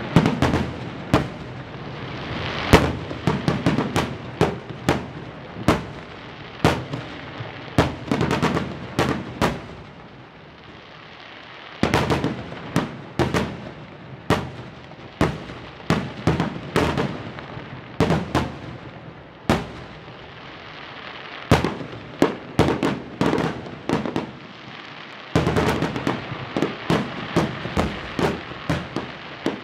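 Aerial fireworks display: shells bursting in rapid volleys of sharp bangs over a steady noisy wash, with brief lulls about ten and twenty seconds in before a dense barrage near the end.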